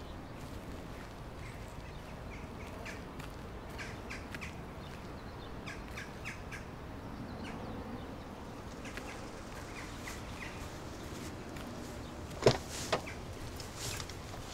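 Birds chirping over a quiet outdoor background. Near the end come two sharp knocks, a car door being opened and shut as someone gets in.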